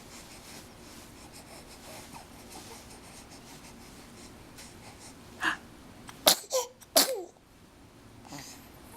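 A six-week-old baby sneezing twice in quick succession, after a short in-breath. Each sharp sneeze is followed by a brief falling little vocal sound.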